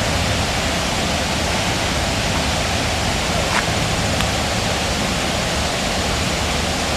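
Waterfall: a steady, loud, even rush of falling water with no let-up.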